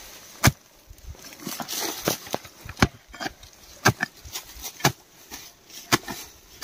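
Short wooden-handled hand hoe chopping into soil among dry grass and weeds, one sharp strike roughly every second, with scraping and rustling of loosened earth between the strikes.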